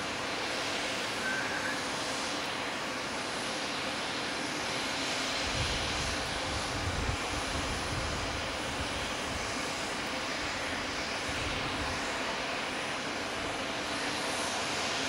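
Airliner engines running at an airport, a steady rush of noise, with an irregular low rumble from about five to twelve seconds in.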